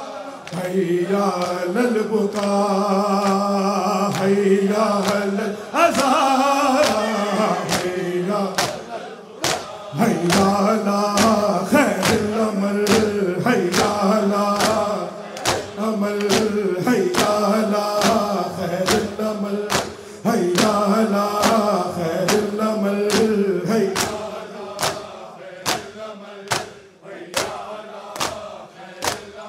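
Men chanting a noha lament in chorus, kept in time by a steady beat of open hands slapping chests (matam). Near the end the chanting drops away and the chest slaps stand out on their own.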